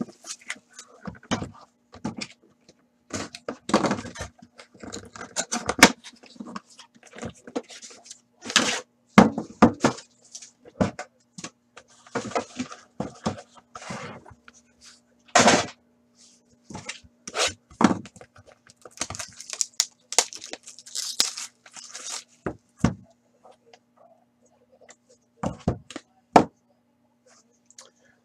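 Plastic shrink wrap crinkling and tearing as it is stripped off a trading-card box, then the cardboard box being opened and its inner case handled, in irregular rustles and light knocks that stop a couple of seconds before the end. A faint steady low hum runs underneath.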